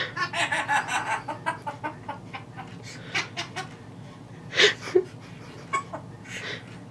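Pet parrot chattering: a quick run of short pitched notes over the first two seconds, then scattered clicks and short squawks, the loudest about four and a half seconds in.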